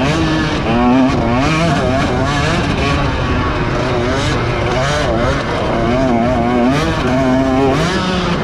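Several racing engines running hard at once, their pitch rising and falling over and over as they rev up and back off.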